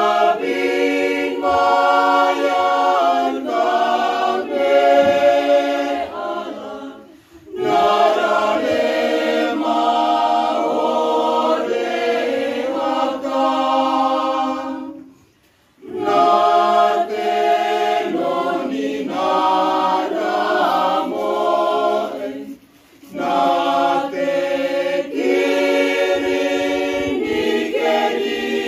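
Mixed choir of men and women singing unaccompanied, in long phrases broken by brief pauses about every eight seconds.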